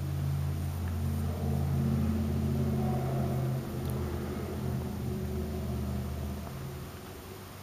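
2002 Corvette Z06's LS6 V8 engine running with a steady low rumble, a little louder around two to three seconds in, then fading away near the end.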